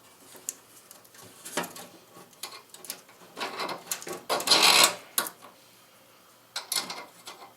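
Metal parts and hand tools being handled: scattered clicks and clanks, with a louder rattling scrape about four and a half seconds in.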